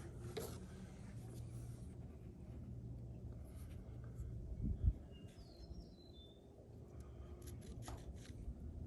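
Quiet workshop with a steady low hum, faint small clicks and handling noises, and one dull thump about halfway through.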